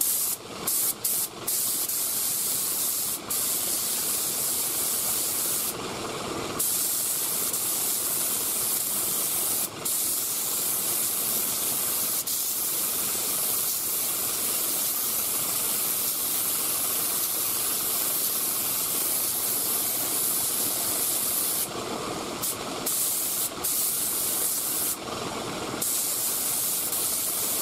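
3M Performance HVLP spray gun spraying single-stage urethane paint: a steady hiss of air and atomised paint that breaks off briefly a few times between passes.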